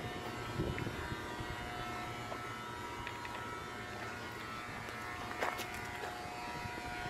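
Floating pecan destoner running: a steady electric hum and buzz from its water pump and vibrating tray motor, with a few light clicks about five and a half seconds in.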